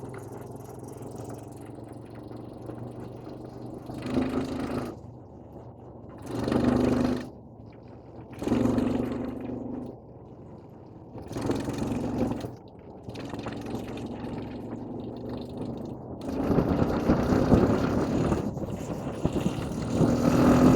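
Vehicle engine running steadily, with louder surges about every two seconds, each lasting about a second, as the throttle is opened and eased; the strongest surges come near the end.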